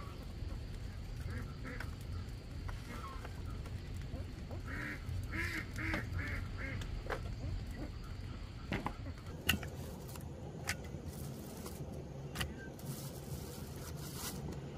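A run of short animal calls, about five in quick succession in the middle, with fainter ones before them. Sharp clicks and knocks follow in the second half over a steady low rumble.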